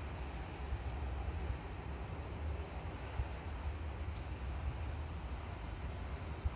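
Steady rain falling, with wind buffeting the microphone as a fluttering low rumble.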